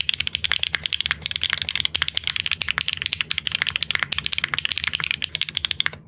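Fast typing on a mechanical keyboard with linear switches, a Neo65 Core Plus on a PBT plate: a quick, steady run of key clacks with short pauses near the middle and near the end.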